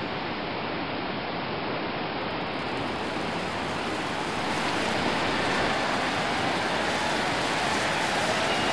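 Steady rushing water, an even noise that grows slightly louder.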